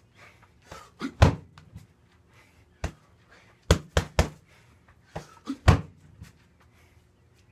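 Punches and kicks landing on a tall heavy bag: sharp thuds in irregular combinations, with a pair a second in, a quick run of three strikes near the middle and a hard single blow about two seconds later.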